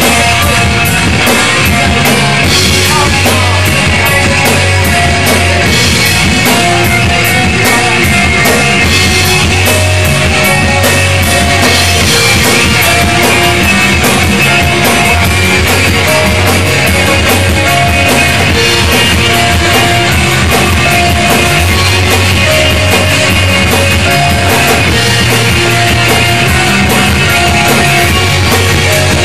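Live rock band playing loud and steady: electric guitars over a drum kit keeping a steady beat.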